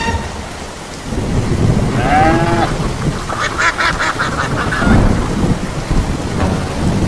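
Steady rain with low thunder rumbles, overlaid with goose honking: one drawn-out, arching honk about two seconds in, then a quick run of honks around three and a half seconds in.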